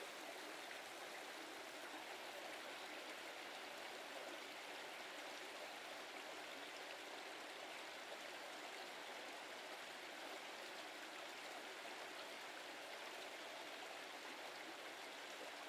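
Steady rushing of a brook's running water, even and unbroken.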